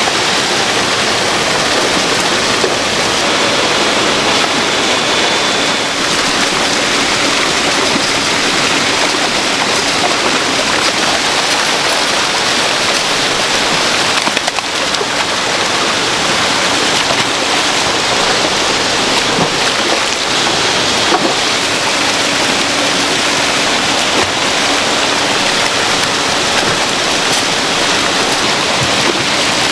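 Water jetting from a pipe into a crowded salmon holding tank, a steady, loud rushing and splashing as the fish churn the water.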